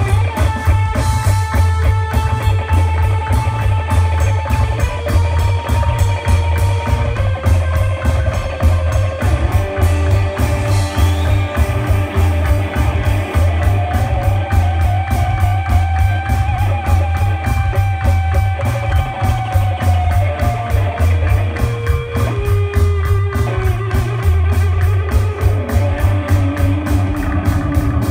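Live psychedelic rock band playing loudly: a heavy electric bass line under sustained guitar tones and a drum kit.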